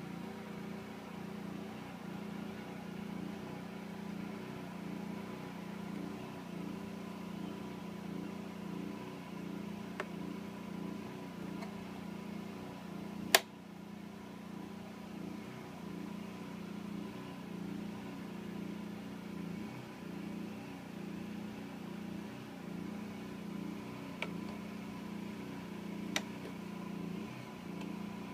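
Generac generator engine running steadily on natural gas through a conversion kit, an even hum. A single sharp click about halfway through, with a few fainter ticks later.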